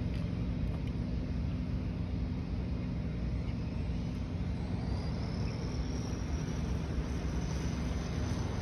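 Marui Galaxy RS radio-controlled buggy's Mabuchi 540 sport-tune electric motor running flat out on a top-speed pass, heard as a faint high whine that rises slightly in pitch from about halfway through, over a steady low rumble.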